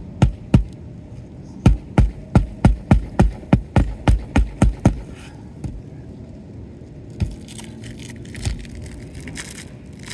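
Hammer striking roofing nails into an asphalt shingle: a quick run of sharp blows, about three a second, for the first five seconds. After that come a few single knocks and some scratchy scraping.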